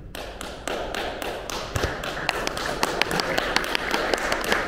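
Scattered applause from a small audience: many separate, irregular hand claps over a haze of noise, beginning just after the start.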